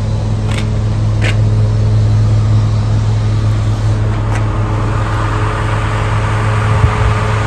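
Semi truck's diesel engine idling with a steady low hum, with a few light clicks in the first seconds. The sound grows brighter and noisier from about halfway through.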